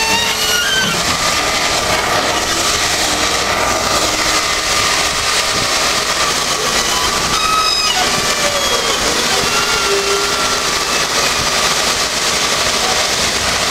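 Hydraulic excavator running steadily while its scrap-shear attachment pushes a steam locomotive's tender along the rails, with short high squeaks and a single clank just past halfway.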